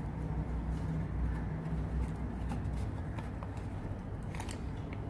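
Sheet of origami paper being handled, folded and creased by hand, giving scattered small crinkles and crackles, a few of them together about four seconds in. Under it runs a steady low background hum.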